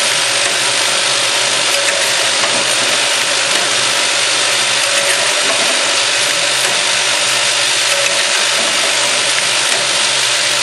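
Automatic hinge-tapping machine running, its spindles cutting threads in metal hinge parts: a steady, even machine noise with a faint hum.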